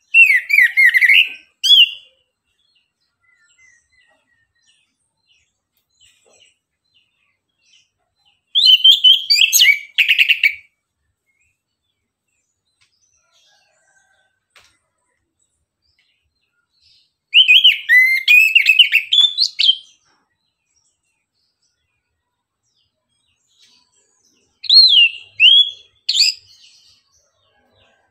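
Chestnut-capped thrush (anis kembang) singing four short phrases of quick whistled and twittering notes, each about two seconds long, with pauses of several seconds between.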